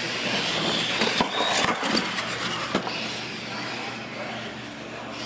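Radio-controlled monster trucks running on a concrete floor: a steady motor whine and tyre noise, with a few sharp knocks between about one and three seconds in.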